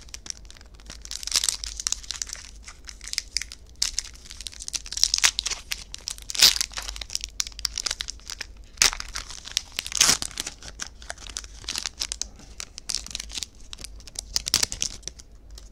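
Foil wrapper of a Yu-Gi-Oh! Maximum Gold El Dorado booster pack crinkling and tearing as it is opened by hand: a dense run of sharp crackles, with louder rips about six and a half and ten seconds in.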